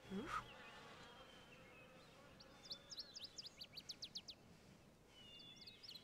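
A fly buzzing faintly, with a short rising sweep at the start, then birds twittering in quick high chirps in the middle and again near the end.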